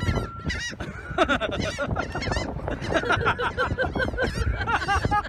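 Several gulls calling at once: a dense run of short, overlapping cries, each rising and falling in pitch.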